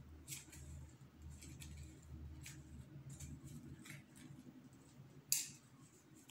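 Faint scratching and clicking of a thin stick digging into the potting soil of a small plastic pot, working a succulent seedling loose. One sharper click comes about five seconds in.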